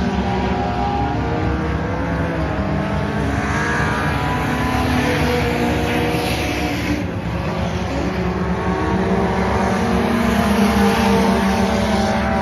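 A pack of dirt track race cars running laps together, several engines at once rising and falling in pitch as they go around the oval.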